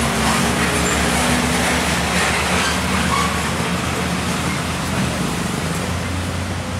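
Heavy road traffic passing close, with buses and a truck running on diesel engines, a steady low drone under loud tyre and engine noise that eases slightly near the end.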